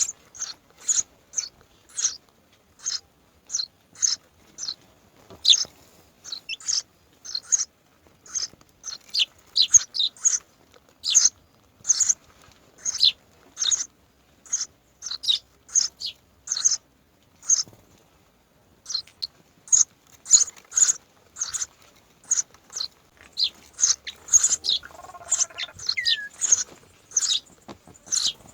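Myna birds chirping: a long run of short, sharp, high-pitched calls repeated about once or twice a second, with a brief pause near the middle.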